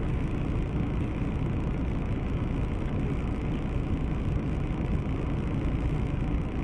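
Steady car engine hum and cabin noise, heard through a dashcam microphone inside a stopped car, with no distinct crash impact.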